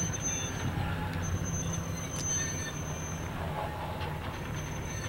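Virginia & Truckee No. 29, a 2-8-0 steam locomotive, running slowly toward the listener with a steady low rumble. A thin high squeal comes and goes over it.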